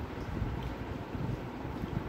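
Low, uneven rumble of wind buffeting the microphone.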